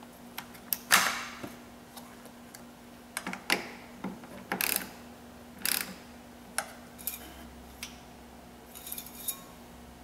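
Scattered clicks, clacks and light knocks of objects being handled, the sharpest about a second in, over a faint steady hum.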